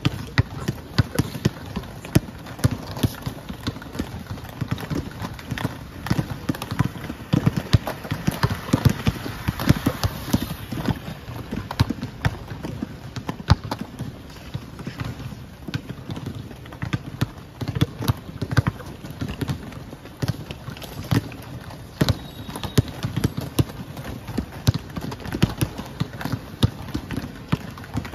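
Several basketballs being dribbled at once on a hard stone-tiled court, their bounces overlapping in a quick, irregular patter, over the rolling of roller skate wheels.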